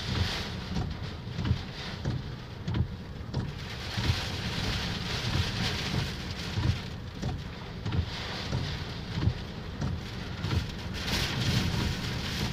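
Hurricane Harvey's wind-driven rain pelting a car heard from inside the cabin, a steady hiss that swells and fades with the gusts. Irregular low thumps of wind buffeting run underneath.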